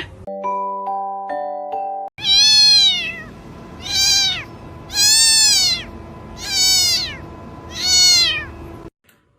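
A cat meowing five times, loud drawn-out meows that rise and fall in pitch, about a second and a half apart. Before them comes a short electronic melody of held notes stepping in pitch.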